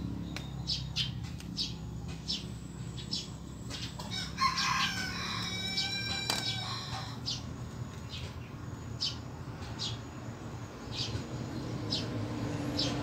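A rooster crowing once, about four seconds in, a pitched call lasting a couple of seconds. A steady low hum and scattered short high clicks run underneath.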